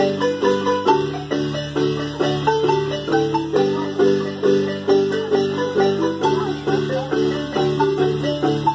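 Dance music with a steady beat about twice a second: quick struck notes over a held bass line.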